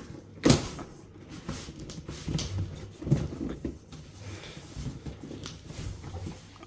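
Cardboard shipping boxes being handled: scraping and rustling as the inner box is slid out of the outer one, with a sharp thud about half a second in and another bump around three seconds.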